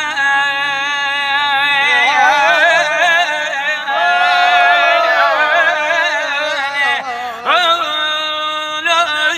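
A man singing a drawn-out, ornamented Iraqi-style vocal line, holding long notes with a wide vibrato. He breaks off about seven seconds in and comes back on a rising slide.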